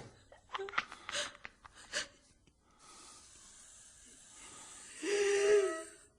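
A person's short breaths and gasps, then a steady hiss, with a brief held vocal cry about five seconds in.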